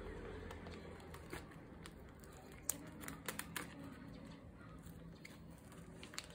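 Photocards in clear plastic sleeves being handled: soft, faint plastic crinkling with a few light clicks and taps, a small cluster of them around the middle.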